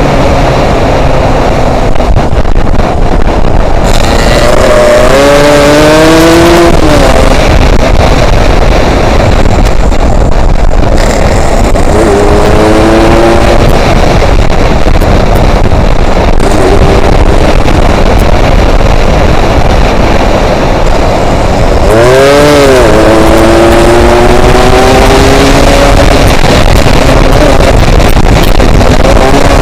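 Yamaha RX-King's two-stroke single-cylinder engine accelerating while riding, its pitch climbing in several runs through the gears, under heavy wind noise on the microphone. There is a brief drop and fresh climb about twenty-two seconds in.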